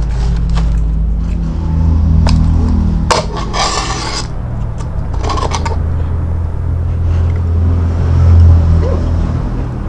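A drinking straw scraping as it is pushed down through the plastic dome lid of a paper soft-drink cup, about three seconds in, with a shorter scrape a second or so later. A steady low hum runs underneath.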